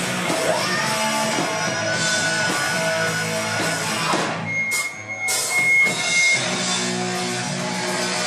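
Live hard rock band playing loud, with distorted electric guitars and a drum kit. A little past halfway the band briefly drops out, leaving a single held high note, then comes back in full.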